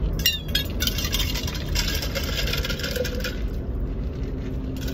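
Steady low rumble of car cabin noise from the vehicle driving, with a few light clicks near the start and a brief higher hiss about two seconds in.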